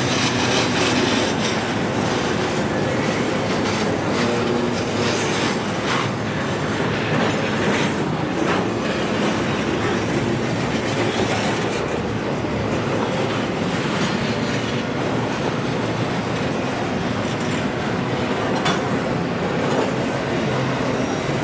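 Intermodal container train's freight cars rolling past on the rails: a steady rumble of steel wheels on track with irregular clacks.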